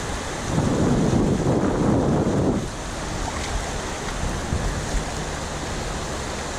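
Rushing river water on a whitewater stretch, with wind buffeting the microphone. It is louder and rumbling for the first couple of seconds, then settles to a steadier wash.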